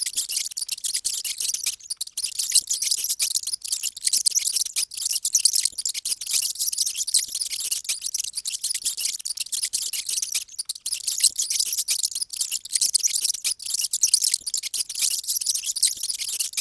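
Many mice squeaking at once: a dense, unbroken chatter of very high-pitched squeaks.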